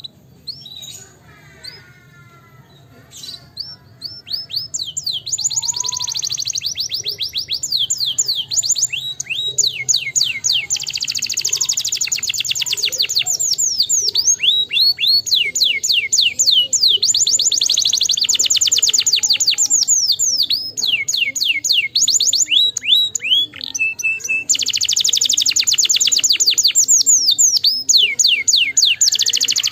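Domestic canary singing: a few scattered notes, then long fast trills of rapidly repeated high notes, broken by short pauses. A brief steady whistled note comes just before the last long trill.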